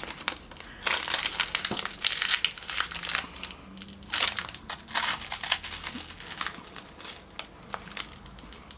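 Plastic snack wrapper crinkling and crackling as it is handled and opened, in bursts with short pauses.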